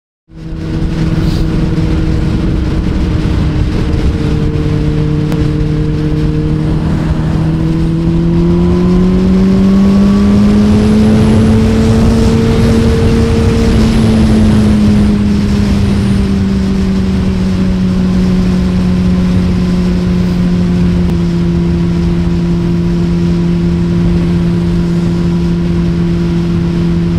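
Honda CBR600RR inline-four through a Two Brothers slip-on exhaust, running steadily at highway cruise with wind rush. About a third of the way in, the engine note climbs gently under a little throttle, then eases back to a steady drone.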